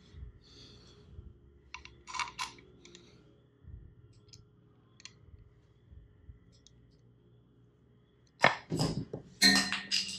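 Steel bolts being handled and threaded by hand into an engine's oil-pan cover: scattered light metallic clicks, then a louder cluster of clinks with a short ring about eight seconds in.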